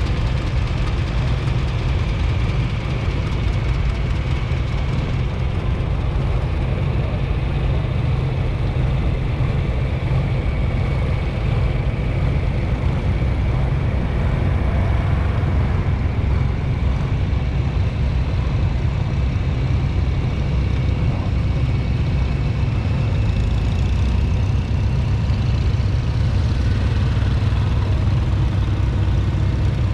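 Steady low rumble of an engine idling close by, with antique farm tractors running past.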